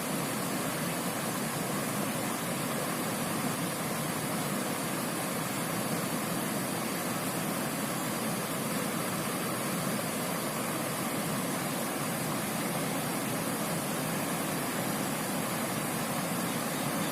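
Steady rushing of river water flowing over rocks, an even wash of noise with no separate events.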